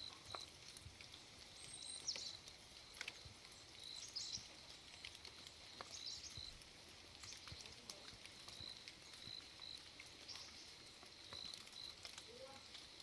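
Faint rainy-morning outdoor ambience: scattered soft ticks of dripping rain, with short high peeps repeating, often in pairs, throughout.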